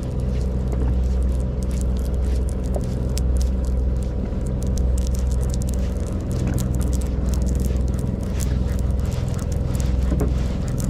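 A boat engine running steadily with a low, even hum, under scattered light clicks and taps.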